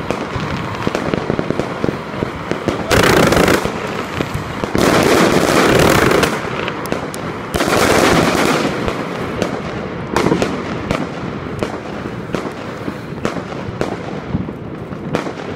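A 144-shot 25 mm fireworks cake (Alpha Fireworks' The Vault) firing: a rapid run of shots and bursts. There are three louder stretches about a second long, around 3, 5 and 8 seconds in, and the barrage thins out near the end.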